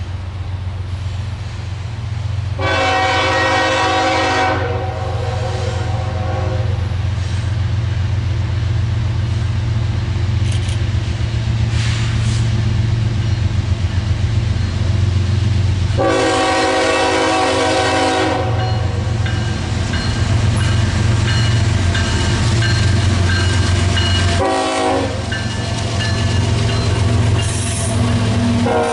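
Diesel freight locomotive's air horn, several notes sounding together as one chord: a long blast a few seconds in, another long blast in the middle, a short toot, and a further blast starting at the very end, in the long-long-short-long pattern of a grade-crossing signal. Under it runs the steady low rumble of the locomotive and train.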